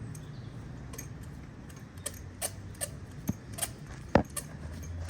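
Spark plugs and hand tools being handled, giving scattered light clicks and taps, with one sharper knock about four seconds in, over a low steady hum.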